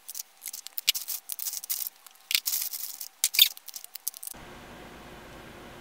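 Plastic lipstick tubes and gloss cases clicking and clattering against each other as they are handled and sorted into a wicker basket: a quick, irregular run of sharp clicks that stops abruptly about four seconds in, leaving faint room tone.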